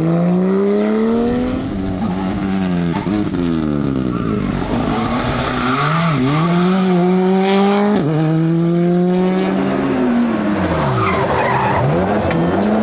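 Rally car engine at full throttle, climbing in pitch through the gears with sharp drops at each upshift, then falling off under braking with short throttle blips on the downshifts, tyres skidding.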